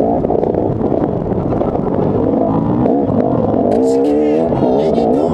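Dirt bike engine running hard under the rider, revving up and down as he accelerates along the motocross track, heard from a helmet camera with rough wind and chassis noise underneath. Near the end the revs swing up and down several times in quick succession.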